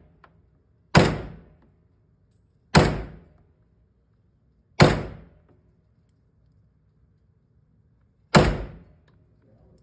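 Four single gunshots, spaced unevenly a second or more apart, each a sharp crack with a short echoing tail.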